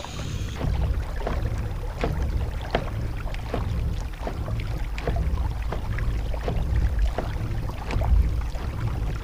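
Kayak under way on open water: a steady low rumble of wind on the microphone, with frequent light ticks and knocks.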